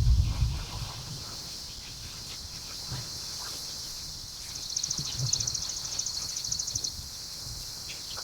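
Outdoor ambience: a steady high drone of insects, with a rapid high trill about five seconds in that lasts about two seconds. There are a few low thumps, the loudest right at the start.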